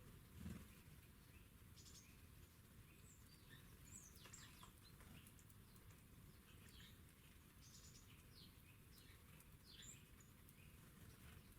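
Faint songbird chirps and short calls, scattered irregularly over a low steady rumble of background noise. A soft low thump about half a second in.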